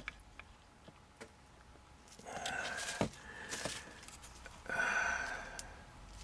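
A man breathing out heavily twice, two long sighs about two and five seconds in. Light clicks and a sharp knock come from a small circuit board being handled between his fingers.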